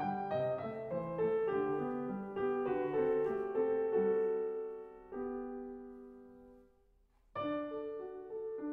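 Schimmel grand piano played solo in a slow classical piece. A phrase comes to rest and its last notes die away to near silence, then the playing starts again about seven seconds in.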